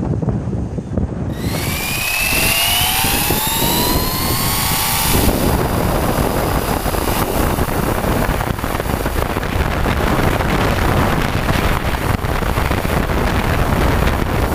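Electric RC car's motor and drivetrain whining, rising in pitch as it accelerates hard for a few seconds, then a steady rush of wind and tyre noise on the onboard camera at speed.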